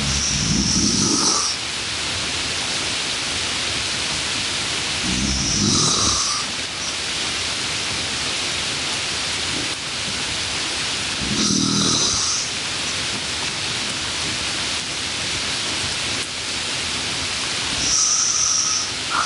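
A steady hiss with a louder, low pitched sound about a second and a half long that comes back about every six seconds, four times in all.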